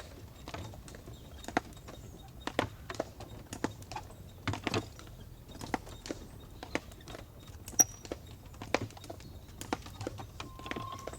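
Hooves of a four-horse team drawing the Norwich Union stagecoach, clip-clopping in an uneven run of several hoofbeats a second over a low rumble. A short squeak comes near the end.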